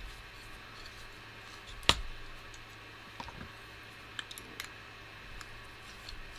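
Scattered light clicks and taps of small screws and quadcopter parts being handled, with one sharper click about two seconds in.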